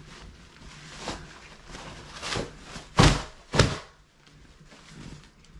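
Handling noises from clearing out a wire puppy pen: several knocks and rustles as pads, bedding and the pen are moved. The loudest are two thumps about three seconds in, half a second apart.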